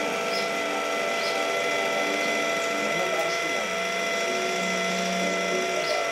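Electric linear actuator's motor and gearbox running with a steady whine and a loud grinding, with short clicks every second or so.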